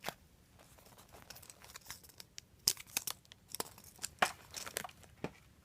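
Irregular crinkling and rustling from handling a foam squishy toy, a Hello Kitty maple waffle, with many small crackles that come thicker and louder in the second half.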